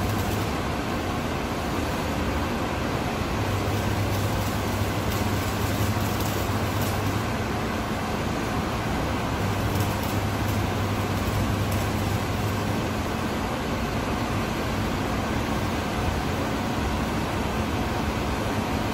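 Electric arc welding on metal: the arc crackles and hisses steadily. A low hum comes and goes in three stretches of a few seconds, and it is gone in the last few seconds, once the welding has stopped.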